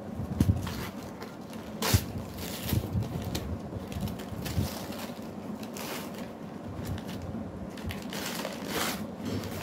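Brown kraft-paper parcel wrapping being torn and crumpled by hand: irregular crinkling rustles and rips, with the sharpest crackles about half a second and two seconds in.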